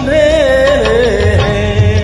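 Bollywood film song: a held, wavering melody line over a regular low drum beat, between sung lines.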